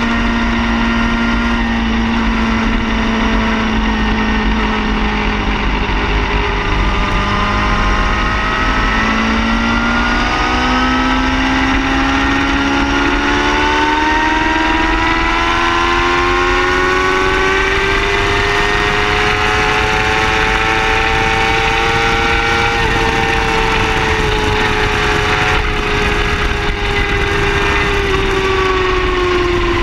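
A car engine running at held revs, its pitch steady at first, then climbing slowly for about fifteen seconds and falling again near the end.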